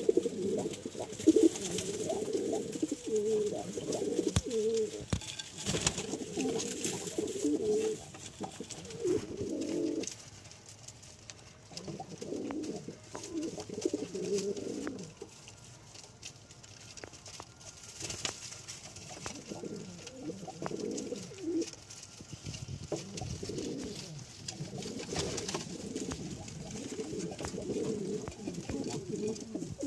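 A flock of domestic pigeons cooing, many low coos overlapping in bouts, dying down for a few seconds about halfway through before picking up again.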